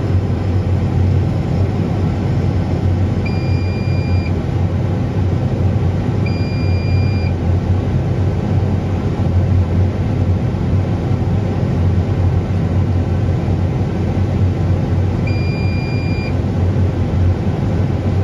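Deutz-Fahr Agrotron 6165.4 tractor's diesel engine, converted to run on rapeseed oil, running steadily, heard from inside the cab. An electronic beep of about a second sounds three times over it.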